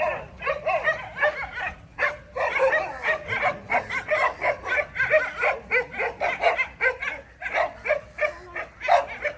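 Dogs yipping and whining in quick, overlapping short high calls, several a second.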